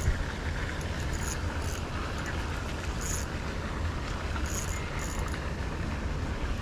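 Wind rumbling steadily on the microphone while a spinning reel is worked against a hooked fish, with short bursts of high ticking from the reel every second or so.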